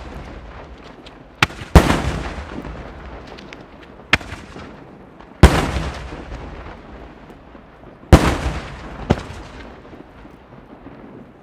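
Maltese aerial firework shells bursting overhead in daylight as loud bangs. There are three heavy reports, each paired with a smaller sharp crack about a second away, and a long rolling echo fades after each one.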